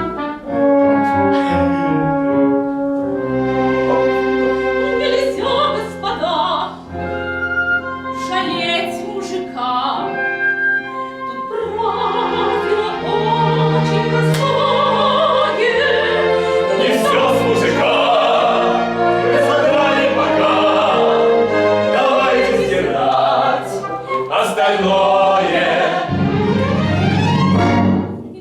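Symphony orchestra playing operetta music with singing voices over it. The music falls away sharply near the end.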